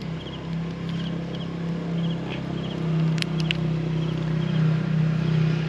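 Steady low motor hum, with faint short chirps repeating and a couple of sharp clicks a little after three seconds in.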